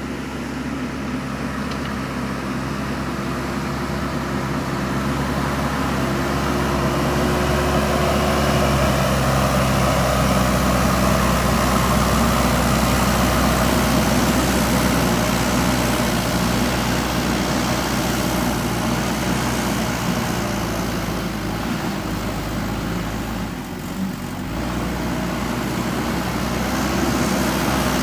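JCB 3DX backhoe loader's diesel engine running steadily under working load, growing louder over the first several seconds and easing off briefly near the end.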